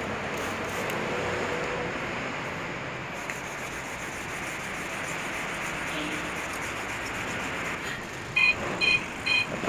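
Hand wet-sanding the painted steel of a motorcycle fuel tank with an abrasive sponge pad to cut out scratches: a steady rubbing hiss. Near the end three short, loud beeps sound about half a second apart.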